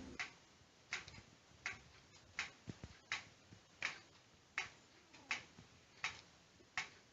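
Faint, regular ticking of a battery-powered waving lucky cat (maneki-neko) as its arm swings: short sharp ticks about every three-quarters of a second.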